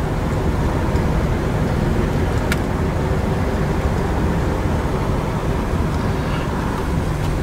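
Steady running-vehicle noise with a low hum, and a single sharp click about two and a half seconds in.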